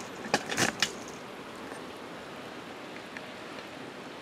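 Four or five quick knocks and clicks within the first second, typical of a camera being handled and set down, then a steady low hiss of background noise.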